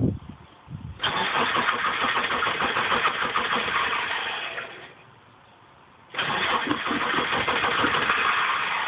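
1998 Subaru Impreza RS's 2.5-litre flat-four being cranked by the starter in two attempts, the first about four seconds long and tailing off, the second starting about six seconds in, with a short knock at the very start. The engine turns over but does not fire: a no-start after the car has sat for three years.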